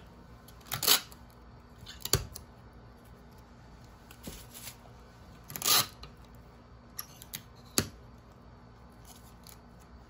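Sheets of paper being handled and rustled on a desk, in a few short bursts, with a sharp knock about two seconds in and a few light clicks near the end.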